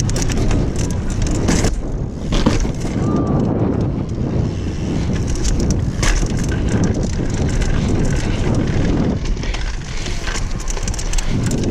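Downhill mountain bike ridden fast over rough ground: wind buffeting the microphone, tyres on dirt, and the bike knocking and rattling over bumps.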